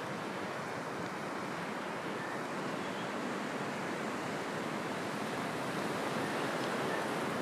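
Strong wind rushing through the trees, a steady surging noise that grows a little louder near the end.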